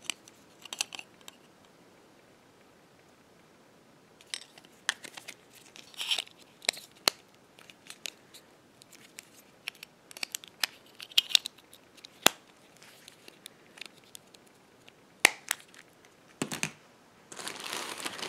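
Sharp plastic clicks and snaps of a Nokia X2 mobile phone's back cover and battery being handled and pressed into place, scattered over several seconds. A plastic bag rustles near the end.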